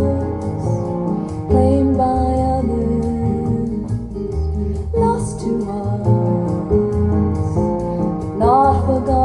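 Recorded folk song played back on a hi-fi system: a slow instrumental passage between sung lines, with a steady bass under sustained notes and plucked strings, and a short rising glide near the end.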